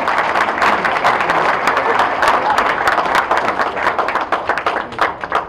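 Audience applauding, with many hands clapping that thins out near the end.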